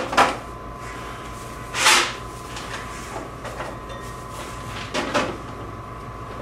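Loose vending-machine candy rattling and shuffling in short bursts as a gloved hand tosses it about to break up stuck pieces. The loudest burst comes about two seconds in and another about five seconds in, over a steady hum.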